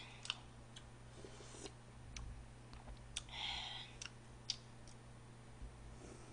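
Faint eating sounds of someone sipping broth from a spoon: scattered small mouth and spoon clicks, with one short slurp about three and a half seconds in. A steady low electrical hum runs underneath.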